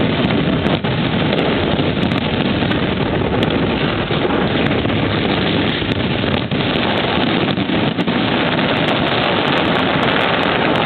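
A dense fireworks barrage heard as a continuous loud rumble, with a few sharp cracks standing out.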